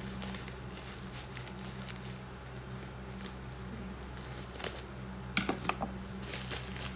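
Cutting open a plastic-wrapped parcel with a knife and scissors: soft plastic crinkling, then a few sharp snips a little under five seconds in.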